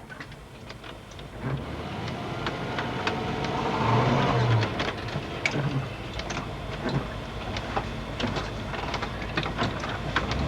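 A vehicle's engine running at a steady low hum that swells about four seconds in, with scattered clicks and knocks.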